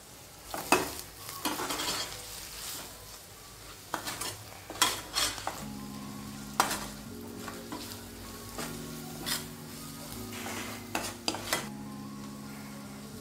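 A spatula stirring and scraping onion-tomato masala frying in a black kadhai, with a soft sizzle and repeated clinks and scrapes against the pan.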